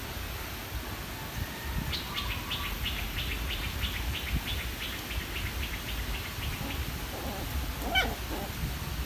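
A bird calling a rapid run of short, high chirping notes, about four a second, for around five seconds. Near the end comes one short, sharp squeak.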